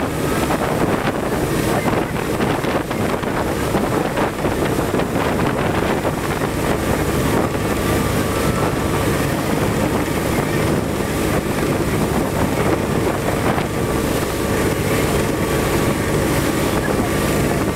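Motorboat running steadily at speed, engine drone mixed with the rush of water from its wake, and wind buffeting the microphone.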